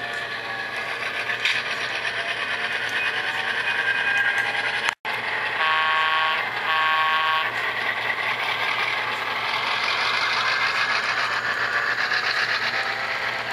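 Model train running on the layout track, its wheels giving a steady rolling noise with fine rapid clicking. About six seconds in, two short horn blasts sound from the model locomotive's sound system.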